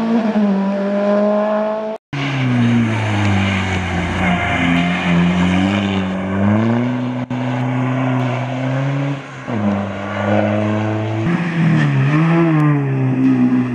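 Rally car engines working through a tight hairpin, one car after another: the engine note drops as each driver lifts and brakes, then climbs again under acceleration out of the bend. The sound breaks off sharply about two seconds in, and changes abruptly again later, where one car gives way to the next.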